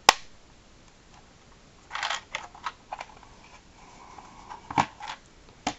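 Hard plastic snaps and clicks from a Jazwares Micro Galaxy Squadron Inquisitor Transport Scythe toy ship being handled: one sharp snap at the start as a folding part locks into place, then a short rattle of clicks about two seconds in and scattered lighter clicks as the ship is turned over.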